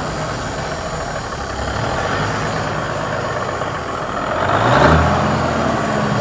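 Diesel engine of an abandoned tow truck running unevenly just after its first start in a long time. It revs up briefly about four and a half seconds in, then settles back to idle.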